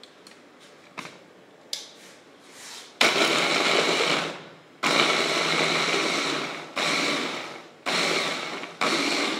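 Anex electric food chopper's motor whirring in five short pulses, starting about three seconds in, coarsely chopping quartered onions; the first two pulses are longest. Two short clicks come before the motor starts.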